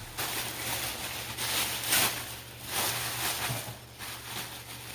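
Paper rustling and crinkling in uneven surges as a gift bag is opened and the paper-wrapped item inside is pulled out, loudest about two seconds in.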